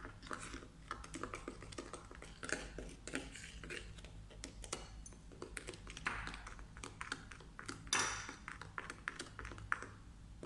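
Metal spoon briskly beating a thin egg-and-oil batter in a ceramic bowl: rapid clicks and scrapes of metal against the bowl, with a couple of longer scrapes in the second half.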